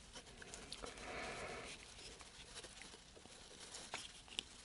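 Faint clicks and rubbing of hard plastic model-kit pieces being pressed and twisted together by hand, a tight-fitting part that won't yet snap into place. A soft scrape about a second in, and two sharper ticks near the end.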